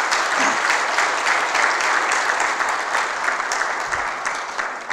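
Audience applauding: a dense run of hand claps that eases off toward the end.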